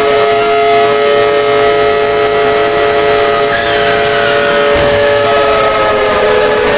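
Alert siren from a mock EAS alarm: a chord of several steady tones held loud, whose lower tones begin to slide down in pitch near the end.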